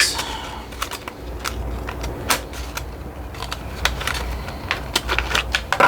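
Plastic packaging and small Dremel accessory pieces being handled, with scattered clicks and light rustling.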